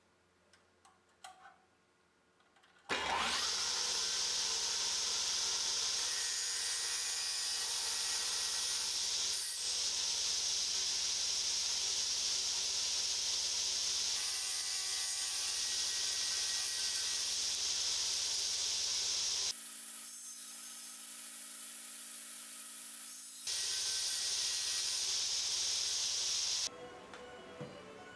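Stationary circular saw running and cutting through a clamped birch board: a steady high whine with sawing noise that starts suddenly about three seconds in. It changes to a duller sound for a few seconds past the middle, then stops shortly before the end.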